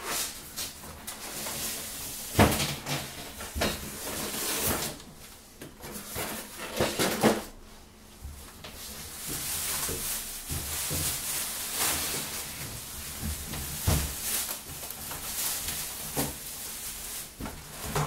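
Unpacking noises from a cardboard box: thumps, knocks and scrapes of cardboard and polystyrene foam packing being pulled out and set down, with plastic wrapping rustling. A few sharper knocks stand out, about two and a half, seven and fourteen seconds in.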